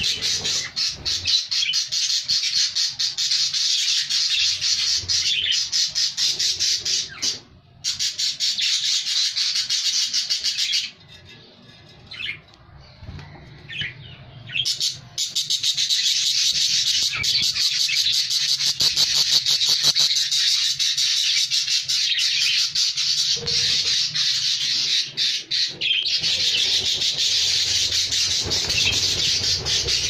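Budgerigars calling inside a clay nesting pot: long runs of fast, rasping chatter, broken by a few seconds of only scattered calls about eleven seconds in.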